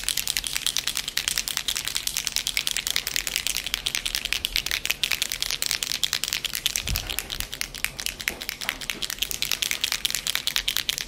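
Bottle of Marabu metallic silver alcohol ink being shaken hard, its mixing ball rattling rapidly and steadily inside to stir up the metallic pigment.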